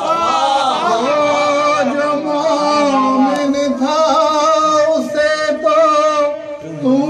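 A man's voice singing a devotional verse, drawing out long, bending, ornamented notes, with a brief dip near the end.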